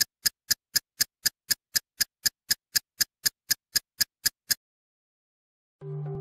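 Steady mechanical ticking, about four sharp ticks a second, that stops after about four and a half seconds. After a second of silence, soft sustained music begins near the end.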